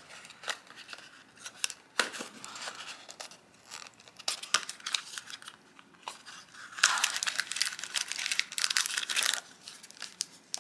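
Paper wrapping being torn and crinkled by hand as a small advent-calendar gift is unwrapped: scattered rustles and tears, with a louder, busier stretch of crinkling about seven seconds in.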